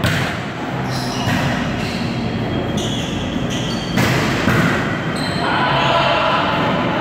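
A volleyball being hit several times during a rally: sharp slaps that echo in a large gym hall, the loudest about four seconds in. Players' voices call out in the background.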